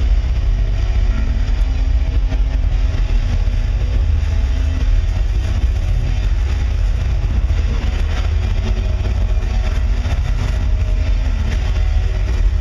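Loud, steady low rumbling drone from the stage sound system of a metal concert, with faint held tones above it and no drums. It is the hold before the band starts playing.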